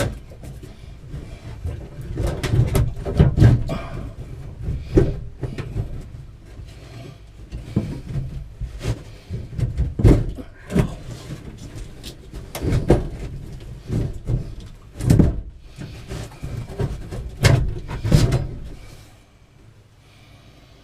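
Irregular knocks, thumps and scraping as the old water heater is worked loose and shifted in its tight compartment. The banging stops about a second before the end.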